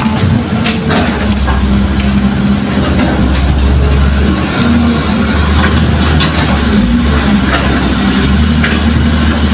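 Diesel engines of a Kobelco hydraulic excavator and a dump truck running steadily while the excavator loads, swings and digs, with a few sharp knocks of metal and earth.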